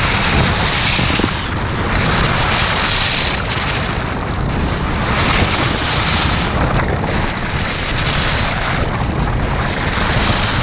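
Skis carving down a hard-packed piste, the edges scraping the snow in swells of hiss about every second and a half, one per turn, over a steady low rumble of wind on the microphone.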